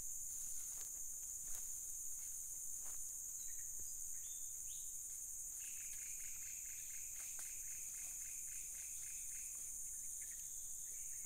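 Steady high-pitched insect chorus. Near the middle there is a run of rapid repeated chirps lasting a few seconds.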